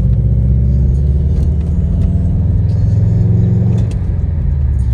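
A 2017 Subaru WRX STI's turbocharged flat-four engine pulling under acceleration, heard from inside the car with road noise. The pitch climbs slowly for about four seconds, then drops as the driver lifts off.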